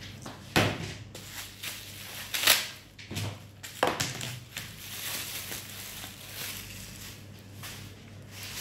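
Packaging being handled and pulled open, with crinkling and several sharp cracks, the loudest about two and a half seconds in.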